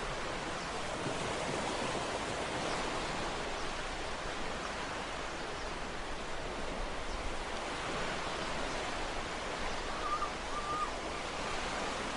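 Ocean waves washing on a shore: a steady rush of surf that swells and eases gently.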